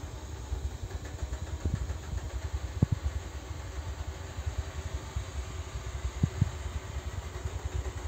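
Robot vacuum cleaner running, its motor humming steadily as it drives onto an elevator platform, with a few short knocks along the way.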